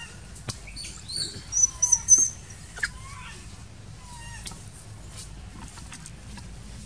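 Baby macaque giving a run of short, high-pitched squeaking cries, loudest about one and a half to two seconds in, with a few fainter chirps after.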